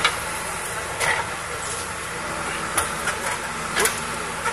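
Excavator engine running steadily, with a few short, sharp knocks over it: one about a second in, one in the middle and one near the end.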